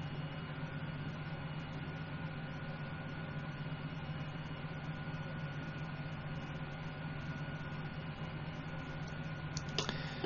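Steady low electrical hum and hiss with a faint high whine, typical of a computer's fans under rendering load picked up by a desk microphone. A short soft noise comes near the end.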